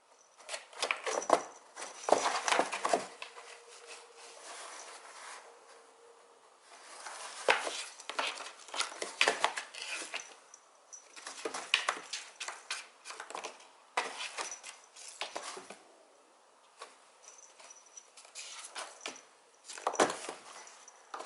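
A kitten playing on her own: bursts of light paw patter, scratching and small clicks and knocks, coming in clusters with short pauses between them.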